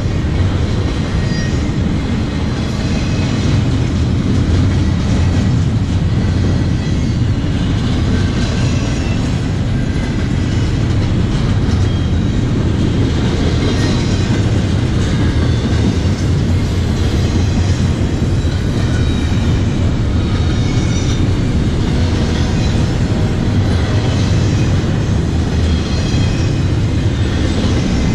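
CSX intermodal freight train's double-stack well cars rolling past close by: a steady, loud rumble of steel wheels on the rails.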